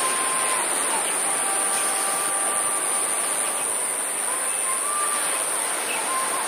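Outdoor ambience: a steady high-pitched insect drone over a constant rushing noise, with a few faint, thin whistled notes.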